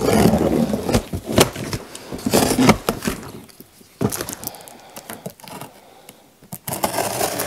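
Small knife cutting through the packing tape on a large cardboard box: irregular scrapes, rips and knocks of blade, tape and cardboard, quieter in the middle stretch.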